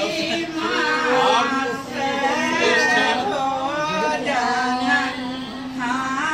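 A song: a singing voice with musical backing, the melody sliding between long held notes.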